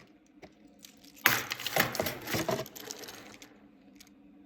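Hands handling packaging and a small object: a sudden burst of clicking and rustling about a second in, lasting about a second and a half, then only faint handling noise.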